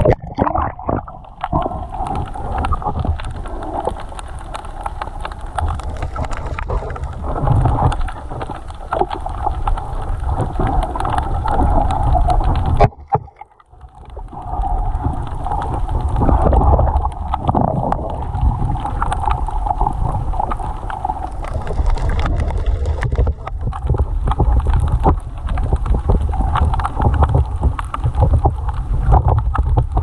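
Sea water around a camera held underwater: a steady, muffled rush and low rumble with scattered clicks. It drops out suddenly for about a second a little before halfway, then comes back.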